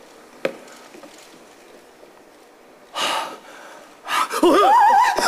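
A performer's sharp, noisy intake or exhale of breath about three seconds in, then a loud man's voice wavering up and down in pitch near the end, over quiet stage room tone with a single click early on.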